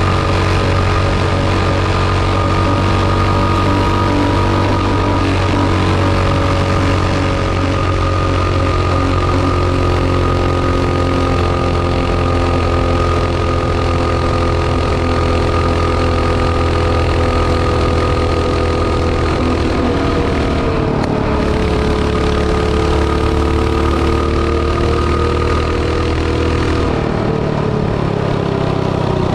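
A mini bike's small engine, fitted with an oversized 22 mm carburetor, pulls at a steady speed on the road with wind rushing past. The engine note drops about two-thirds of the way through as the throttle eases, climbs a little, and falls off again near the end. The spark plugs show the engine still running lean on this jetting.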